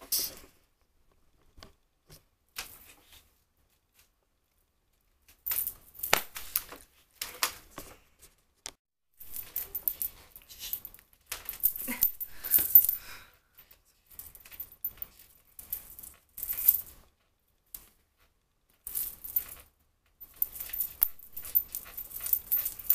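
Hands working through hair and pushing a thin headband into place: irregular bursts of scratchy rustling close to the microphone, starting after a few quiet seconds.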